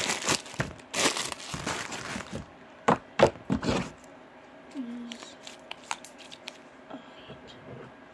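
Plastic packaging crinkling and rustling as green fluffy slime is handled and taken out, dense at first and then breaking into a few sharp crackles. After that come scattered faint clicks as the slime is squeezed in the hand.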